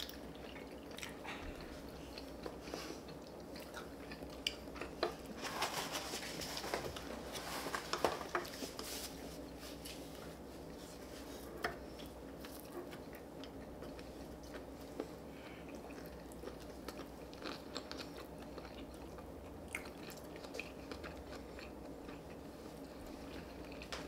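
Close-up eating: chewing and biting with soft crunches, busiest about six to eight seconds in, and occasional light clicks of utensils against dishes.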